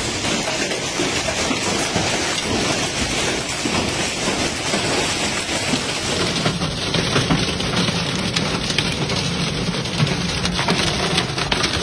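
Hail and rain pelting a wet street, a dense clatter of countless small hits over a steady rushing hiss. The clatter turns sharper a little past halfway.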